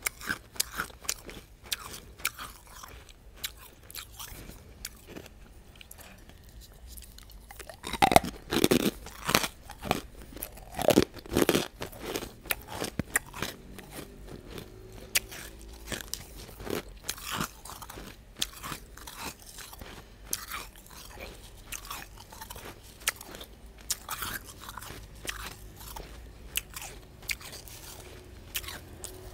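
Close-miked chewing and crunching of refrozen crushed ice, a dense run of small cracking crunches, with a stretch of louder crunching about eight to twelve seconds in.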